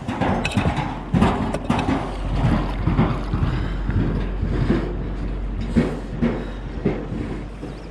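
Shallow river water splashing and sloshing irregularly around a hand and a large chub as the fish is released. The busiest splashing comes in the first couple of seconds. Wind rumbles on the microphone throughout.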